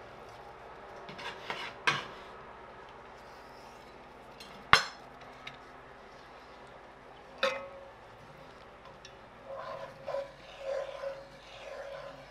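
Utensils on an enamelled cast-iron pan of cream sauce: three sharp knocks, the middle one the loudest, as dill is scraped off a knife into the sauce. From about three-quarters of the way in, a wooden spatula stirs the thick sauce in quick strokes, sliding and scraping over the pan bottom.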